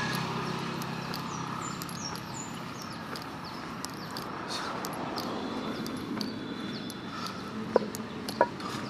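Street ambience: a steady hum of passing traffic with small birds chirping high-pitched in the roadside trees, and two sharp clicks a little before the end.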